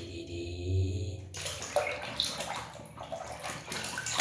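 Water sloshing and splashing in a plastic washbasin as a hand scrubs a small plastic toy bulldozer under the surface. The splashing starts a little over a second in.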